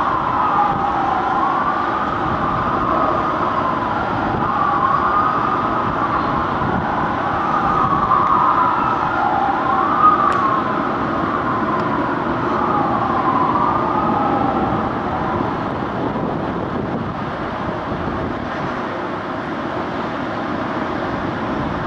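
Fire apparatus sirens wailing, rising and falling in pitch with sweeps overlapping at times, fading out after about fifteen seconds over a steady low rumble of traffic.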